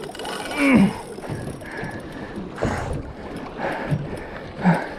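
Small boat on open water, with wind on the microphone and water sloshing against the hull. A few short falling grunt-like sounds come through, about a second in and near the end.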